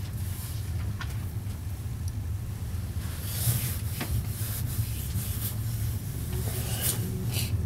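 Passenger train heard from inside the carriage as it rolls out along the station tracks: a steady low rumble, with a few sharp clicks and short bursts of high hiss.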